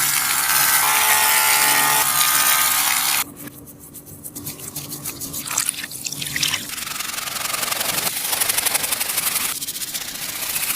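A sticky taba squishy being squeezed and rubbed by hand, giving a tacky rubbing crackle. It is loud for about the first three seconds, drops suddenly to a softer rubbing, and turns into a fast, fine crackling in the last few seconds.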